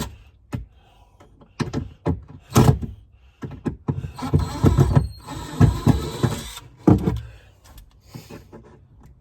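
Knocks, thunks and scraping of a wooden cabinet being worked on as it is loosened for removal, with a denser stretch of about two seconds of scraping and rattling in the middle.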